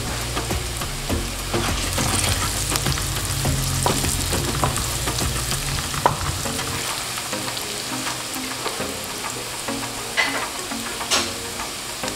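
Chopped ginger, garlic and green chillies sizzling in hot mustard oil in a pan, with a spoon stirring through them and clicking against the pan now and then.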